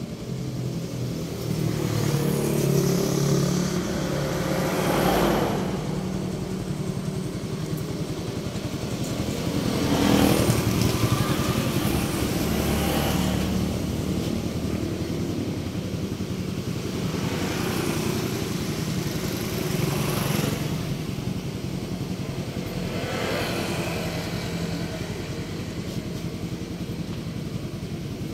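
Street traffic: several motor vehicles pass one after another over a steady background of engine noise.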